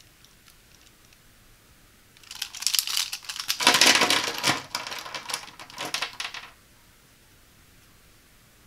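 A handful of plastic Zebra Z-Grip retractable ballpoint pens clattering and clicking against each other and the table as the bundle is set down and shuffled by hand. It starts about two seconds in, is loudest midway, and stops about two seconds before the end.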